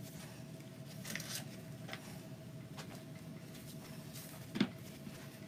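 Ribbon being handled and looped by hand: soft rustling with a few light clicks and taps, the loudest about four and a half seconds in, over a faint steady hum.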